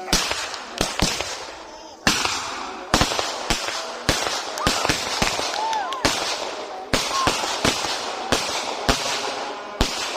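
Fireworks and firecrackers going off: a couple of dozen sharp bangs in quick, irregular succession over a continuous crackling hiss.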